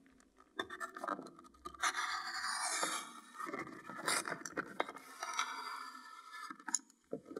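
Knife blade slicing through the paper seal band wrapped around a hard plastic carrying case: a series of scratchy scraping strokes with paper rustling, the longest stretch about two seconds in.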